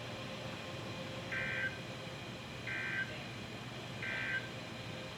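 Emergency Alert System end-of-message data: three short, identical bursts of warbling two-tone digital data, about a second and a half apart, over steady radio hiss.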